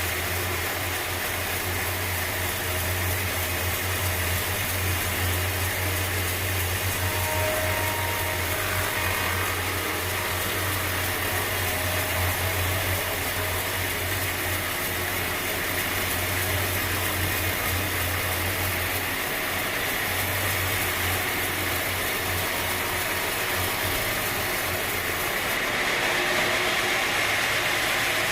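Sawmill machinery running steadily: a constant low drone with a broad hiss over it, a little louder near the end.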